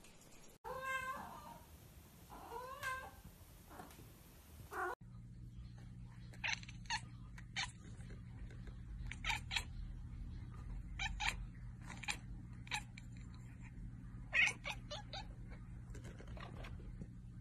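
Russian Blue cats calling: first three drawn-out meows that glide up and down in pitch, then a different cat making a string of short, clipped chirps, one or two a second, over a steady low hum.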